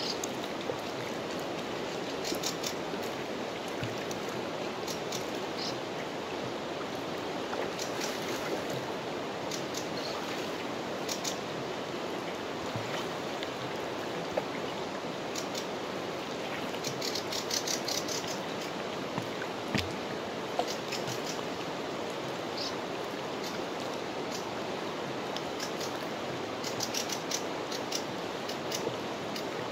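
Fast-flowing river water rushing steadily, with several short bursts of rapid high clicking at irregular intervals, the most crowded burst coming a little past halfway.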